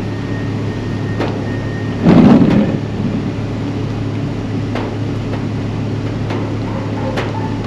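Engine idling with a steady low hum, with a few sharp scattered ticks and one brief loud thump about two seconds in.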